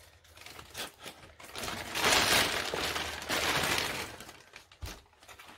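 Clear plastic wrapping crinkling and rustling as it is handled, loudest for about two seconds in the middle, with a few light knocks and clicks around it.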